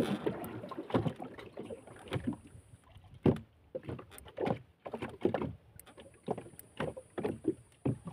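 Water slapping and sloshing against a small boat's hull in irregular bursts, with occasional knocks.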